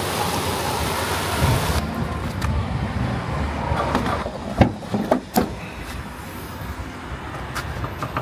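Motor vehicle running with steady road noise that cuts off about two seconds in, followed by quieter surroundings with a few sharp knocks and clicks.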